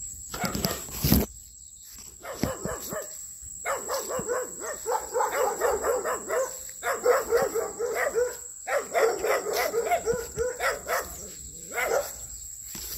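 A dog barking in rapid runs, several barks a second, broken by short pauses. A few louder knocks and brushing sounds come in the first second or so.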